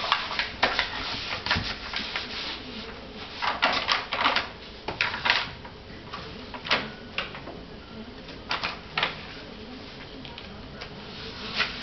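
Stiff pages of a homemade book being flipped by a small child's hands: irregular papery flaps and rustles, some in quick clusters.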